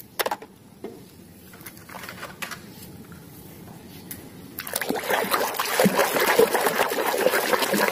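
A few faint clicks of plastic toys being picked up and handled. Then, just over halfway through, a hand swishes a mud-covered toy road roller through a basin of water, sloshing steadily.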